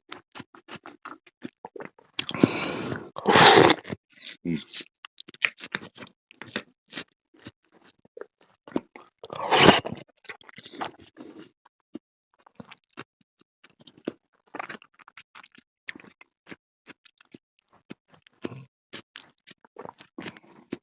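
Close-up chewing of fruit salad topped with cheese: a run of short wet mouth clicks and smacks, with two louder noisy crunching or scraping bursts, one about two to four seconds in and one near the middle.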